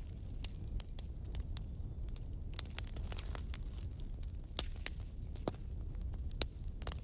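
Handling noise from a paper booklet and the phone filming it: a steady low rumble with irregular faint crackles and clicks.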